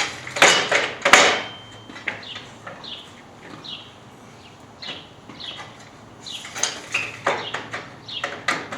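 A vinyl gate rail being slid over its aluminum frame member: bursts of plastic scraping and knocking against metal, loudest about a second in and again near the end.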